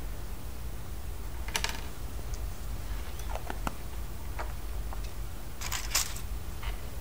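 Hands handling toy surprise eggs and their packaging: a short crinkle, a few light clicks and taps, then a louder crinkle about a second before the end, over a low steady hum.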